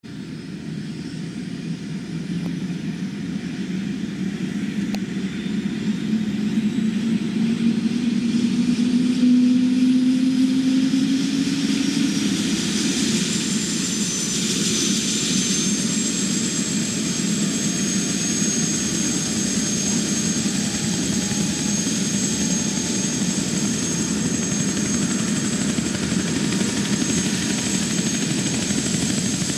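Eurocopter AS350 Écureuil single-turbine helicopter on the ground spooling up with its main rotor turning: the sound grows louder over the first ten seconds with a low tone gliding upward, then settles into a steady run with a high turbine whine from about halfway through, the rotor at running speed.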